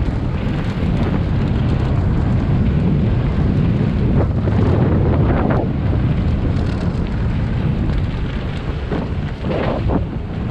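Wind buffeting the camera microphone with a steady low rumble, typical of a downhill mountain bike ride filmed on an action camera.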